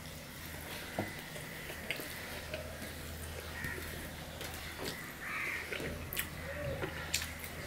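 Eating by hand: fingers squishing and mixing rice on a steel plate, with chewing and sharp little clicks scattered through, over a steady low hum.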